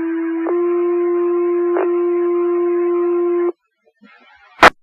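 Two-tone sequential fire paging tones sent over a dispatch radio channel to set off the volunteer firefighters' pagers. A steady low tone steps up to a slightly higher one about half a second in and holds for about three seconds before stopping. Near the end there is a short, loud crack of radio noise.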